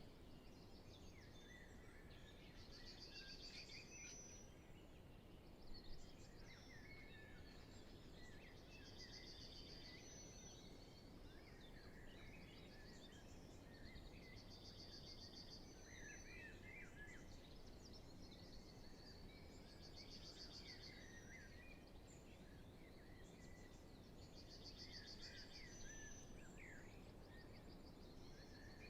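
Faint spring dawn chorus: many birds singing at once over a quiet background hiss, with no wind. One bird repeats a trilled song phrase about every six seconds.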